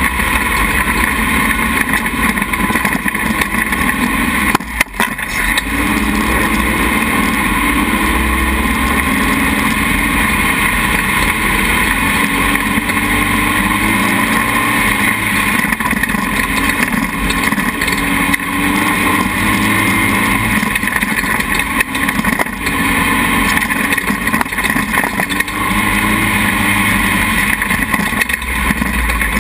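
Dune buggy engine running under throttle while driving over soft sand, its pitch rising and falling as the throttle changes. It dips briefly about five seconds in.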